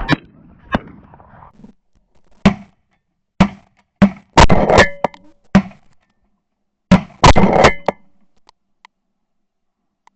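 Shotgun blasts from several hunters firing: single shots and quick runs of several shots close together, with quiet gaps between them.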